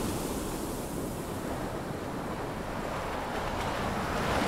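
Sea waves and wind, a steady rushing noise.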